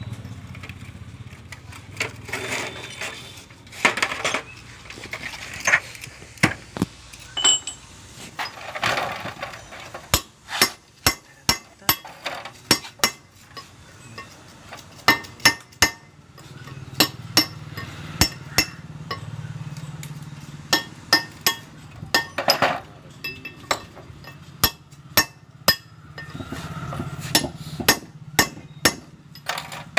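Hammer striking steel gearbox parts: runs of sharp metallic taps, several a second, with short pauses between runs.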